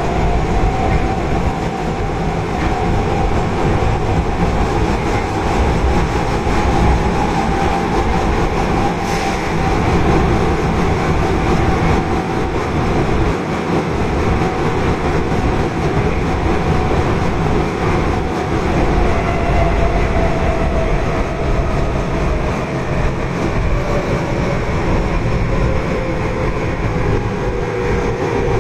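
Tanimachi Line subway car 22659, a Hitachi GTO-inverter train, running on the line, heard from inside the car: a loud, steady rumble of wheels and running gear. Over it a whine slowly falls in pitch.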